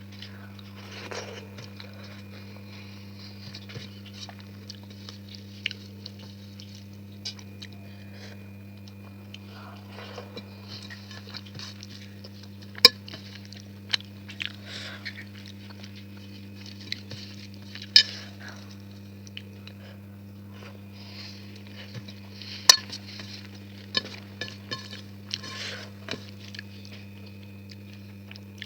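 Plate and utensil clinks and scraping with soft chewing as someone eats a meal of rice and curry. A few sharp clinks stand out over a steady low hum.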